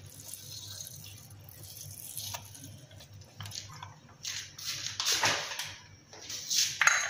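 Milk being poured into a plastic blender jar onto strawberries and ice cream, a faint splashing trickle that gives way to a few louder bursts of splashing in the second half.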